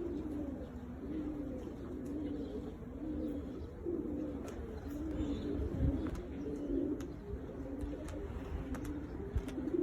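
Domestic pigeons cooing, low burbling coos repeating one after another without a break.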